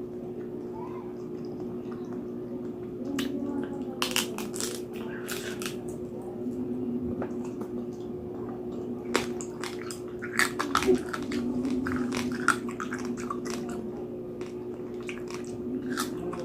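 Close-up chewing and crunching of crispy roast pork skin (lechon), with sharp crackly bites in two spells, over a steady low hum.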